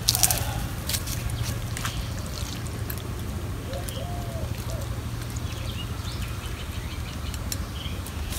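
Metal spatula stirring curry in a steel bowl, clinking and scraping against the metal, with a quick cluster of sharp clinks just after the start. Birds call and chirp in the background over a steady low hum.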